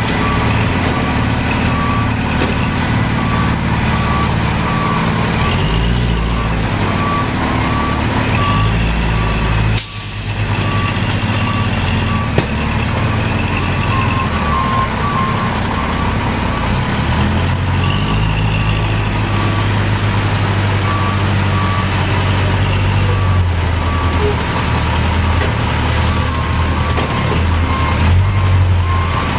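Heavy diesel road-milling machinery and dump truck running steadily, with a backup alarm beeping at an even rhythm, about once a second.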